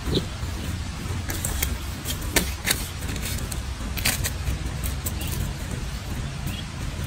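Steady low outdoor rumble, with a handful of sharp clicks and taps between about one and four seconds in.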